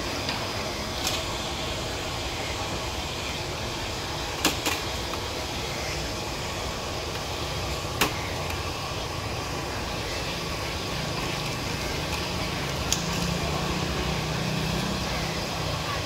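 Steady background noise at a hawker noodle stall, broken by a few short sharp metal clinks of a wire noodle strainer, chopsticks and utensils against the stainless noodle cooker, the sharpest about four and a half and eight seconds in.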